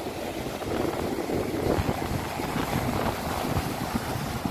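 Strong, gusty storm wind buffeting the microphone, rumbling in irregular surges, over the rush of heavy surf breaking on the beach.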